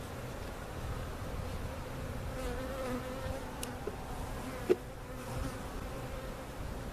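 Many honey bees buzzing in a steady, dense hum, the pitch wavering as individual bees fly close. A single sharp knock about two-thirds of the way through.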